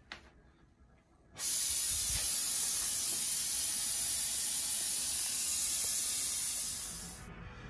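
Large gas torch, already lit, turned up about a second and a half in to a loud steady hissing jet of flame, which dies down shortly before the end.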